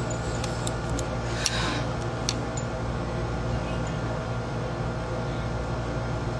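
Steady low electrical or fan-like hum with background hiss, with a few small clicks in the first half.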